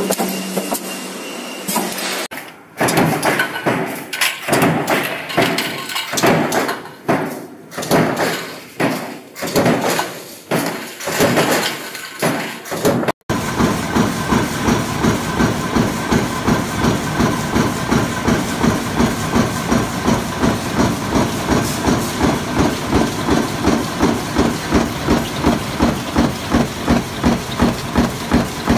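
Coil-fed mechanical stamping press running continuously, striking at a steady rhythm of about two strokes a second. In the first half, heavy clanks and thuds come at an uneven pace.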